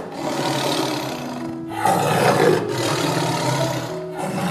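Tiger roaring in long, rough calls, three in a row with brief breaks between them, over background music with steady held notes.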